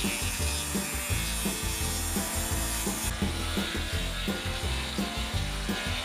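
Solar-powered electric sawmill cutting lengthwise through a log, its blade sawing through the wood.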